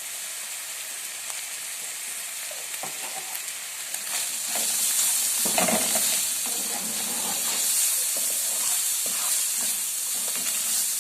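Food frying in oil in a pan, sizzling steadily while a utensil stirs and scrapes it. The sizzle gets louder about four seconds in, with a cluster of clatter and scraping about a second later.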